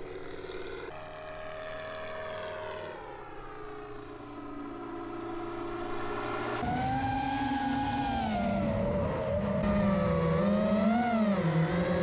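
Scale RC model airplane's piston engine and propeller: the engine note falls as it throttles back, then about six and a half seconds in it runs at low throttle with a wavering pitch as the model rolls along the runway.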